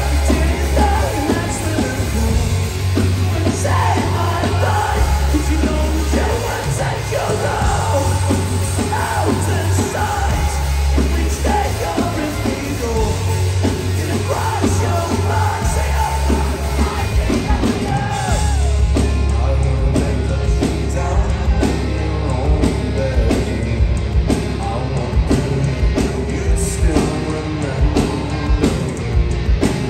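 Rock band playing live and loud: a lead singer singing and shouting over electric guitars and bass guitar.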